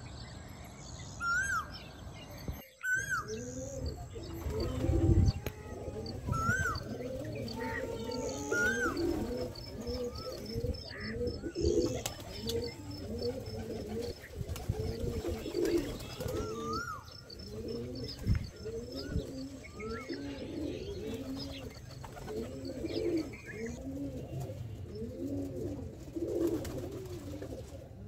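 A few short bird calls, then a flock of domestic pigeons cooing in a wire loft, many low coos overlapping and repeating without a break.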